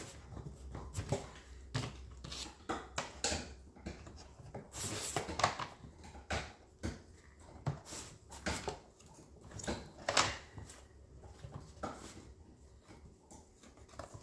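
Irregular clicks, knocks and scrapes of a screwdriver and hands working on a Stihl MS250 chainsaw's plastic handle housing, with a couple of longer scrapes about five and ten seconds in.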